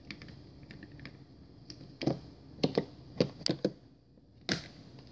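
Hard plastic face paint containers clicking and knocking as they are handled. There is a loose run of about eight sharp clicks starting about two seconds in, with the last one standing apart near the end.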